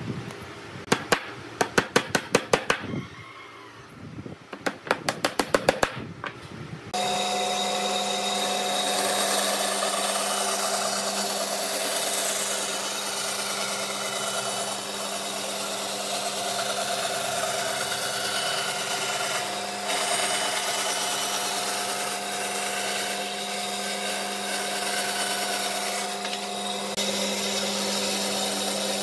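Band saw starts suddenly about seven seconds in and runs steadily with a constant hum while its blade cuts through a thick wooden board. Before it, two quick runs of sharp rapid clicks.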